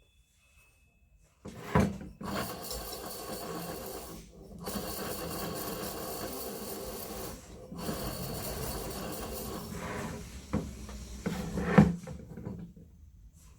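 Car air-conditioning compressor running with a rough, steady grinding noise from a failed bearing. It starts about a second and a half in, drops out briefly twice, and has a few sharp knocks near its start and near its end.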